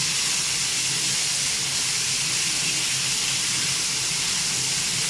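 Beef schnitzels sizzling steadily in hot oil in a frying pan.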